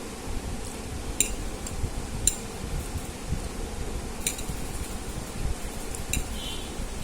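Eating utensil clinking against dishware four times, short sharp ticks with a faint metallic ring, over a steady low fan hum.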